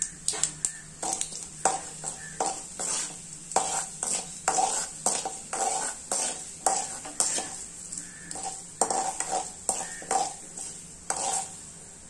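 A metal ladle stirring and scraping in a kadai, clinking against the pan one or two times a second, over a steady sizzle of mustard seeds and moong dal frying in hot oil.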